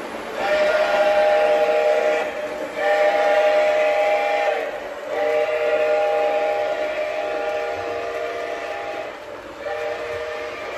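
Lionel Lehigh Valley #2101 O-gauge model steam locomotive's sound system blowing its steam whistle, a chord of a few steady tones, in four blasts: two of about two seconds each, a longer one, and a fourth starting near the end. The train's running noise on the track continues beneath.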